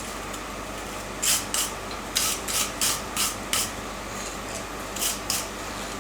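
Steel being worked with a hand file: a quick run of short rasping strokes, a pause, then two more strokes.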